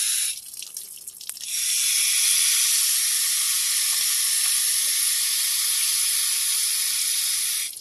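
Garden hose spray nozzle hissing as it showers water onto potted succulents. The spray stops about a third of a second in, comes back about a second and a half in, and cuts off near the end.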